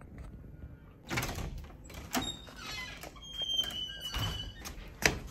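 A door being opened and pushed shut: a series of knocks and thuds, a brief high squeak in the middle and a sharp thud near the end.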